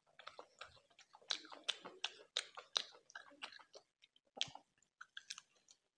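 Close-up chewing and biting of curried chicken. A quick, dense run of mouth clicks for about four seconds, then only a few scattered ones.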